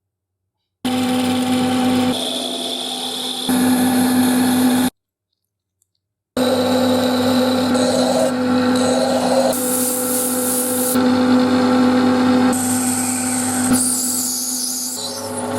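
Electric power tool running steadily with a motor hum, working on the parts of an antique iron. The sound comes in short edited clips whose character changes at each cut, with two abrupt drops to silence, one right at the start and one about five seconds in.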